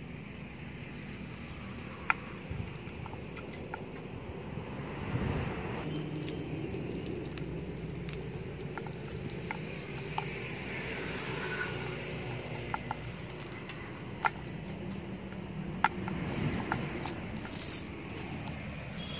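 Hands picking over a nylon cast net with its lead sinker line, the mesh rustling, with a few sharp metallic clicks. A steady low rumble runs underneath.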